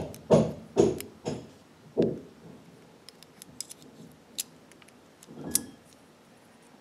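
A run of loud knocks about every half second, slowing and stopping about two seconds in, followed by faint metallic clicks and ticks as a bobbin is slipped into a Singer 241-12's steel bobbin case and its thread drawn under the tension spring, with a soft knock near the end.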